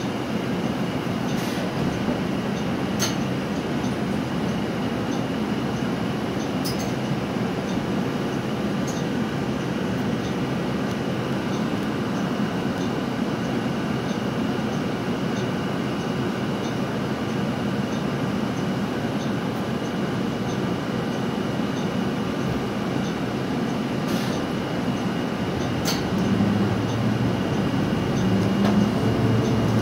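Steady cabin noise of a 2020 Nova Bus LFS city bus under way, engine and road rumble with a few sharp clicks from the body. The low rumble grows louder near the end.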